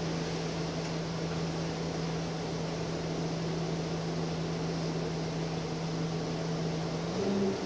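Gillig Phantom transit bus's engine running steadily as the bus drives, heard from the driver's area inside the bus. Its note steps up slightly near the end.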